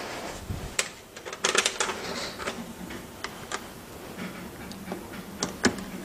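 Scattered light clicks and knocks as a dishwasher's front door panel and its fittings are handled and shifted to line up the screw holes, with a short rattling cluster of clicks about a second and a half in.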